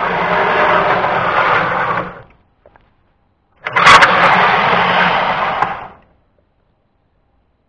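Small electric motor of a homemade model maglev train running, then cutting off about two seconds in. After a pause it starts again with a sharp click, runs for about two more seconds and stops.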